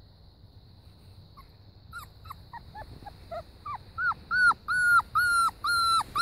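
Puppy whimpering: a run of short, high whines that start about two seconds in and grow louder and more regular, about two a second, each one falling off at the end.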